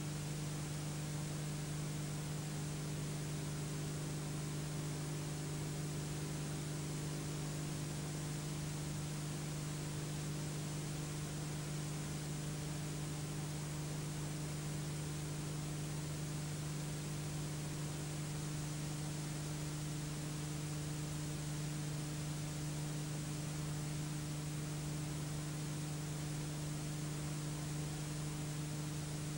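Steady electrical hum and constant hiss, with no other sound: the empty soundtrack of a silent home-movie transfer.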